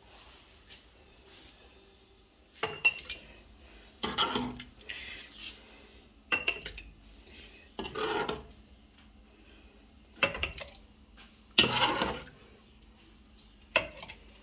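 A metal ladle clinking and scraping against a pot and a glass jar as thick, hot jam is ladled into jars, in about seven separate short clatters a second or two apart.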